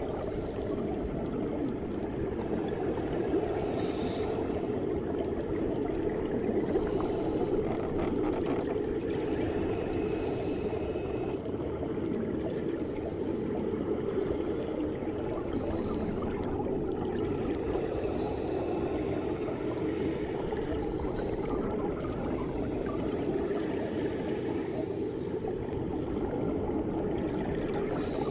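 Steady low underwater rushing heard through a microphone submerged in a swimming pool.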